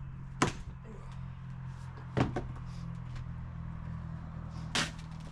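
Three heavy hammer blows on wooden deck boards, about two seconds apart, as old decking is knocked loose, over a steady low hum.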